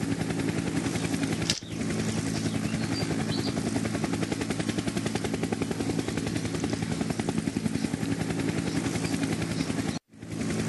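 Helicopter sound effect: a rapid, steady rotor chop over a low engine drone, broken by a short dip under two seconds in and a brief cut-out near the end.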